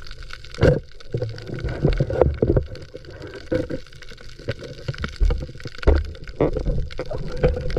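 Muffled water sloshing and gurgling as a spearfisher moves in shallow water, heard underwater through the camera's housing, with irregular knocks and thumps.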